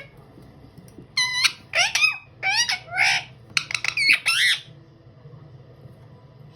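Indian ringneck parrot giving a run of about six loud squawks, one after another, over the first four and a half seconds.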